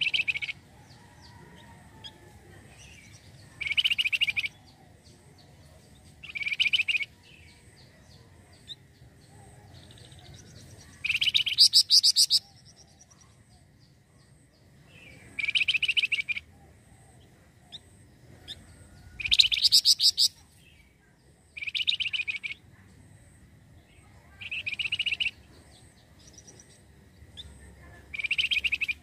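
Flamboyan (wergan jawa) songbird singing short, fast, high-pitched phrases of about a second each, nine times with pauses of a couple of seconds between them. The phrases around twelve and twenty seconds in are the loudest and longest.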